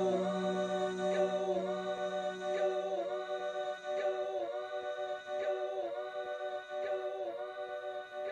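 Soft closing music: a held choir-like chord of steady voices or synth pad that dips and swells about every second and a half. A low drone under it fades out about two seconds in.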